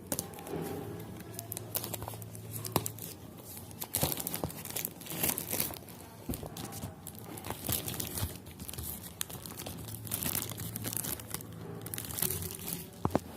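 Packaging being unwrapped by hand: irregular crinkling and tearing with many sharp crackles, on and off throughout.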